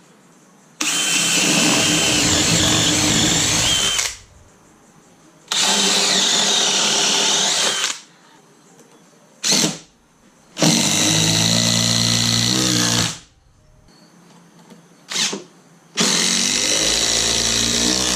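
Cordless drill boring countersink holes into pressure-treated 4x4 posts, running in four bursts of two to three seconds each, with two brief trigger blips between them.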